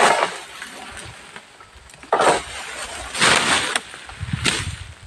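Oil palm fronds rustling and swishing in several noisy bursts as a long-pole harvesting sickle is pulled through the palm's crown. A low thump comes near the end.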